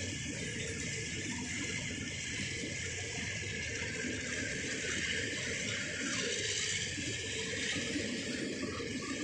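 Passenger coaches rolling past at close range: a steady noise of steel wheels running on the rails. The recording is poor.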